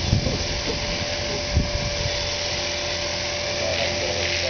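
T-Rex radio-controlled helicopter flying, its rotor and motor giving a steady whine. Wind buffets the microphone in uneven low gusts, with a thump about a second and a half in.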